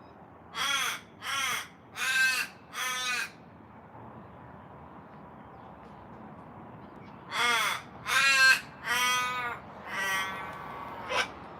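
Raven cawing: four short caws in quick succession, then after a pause of about four seconds another run of four longer, drawn-out caws and a short last one.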